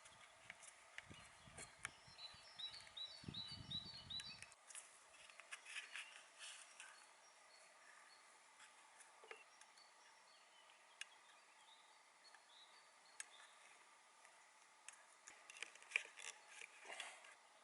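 Quiet forest ambience: a quick run of short high bird chirps near the start, over a faint hiss, with scattered small clicks and ticks, several of them close together near the end.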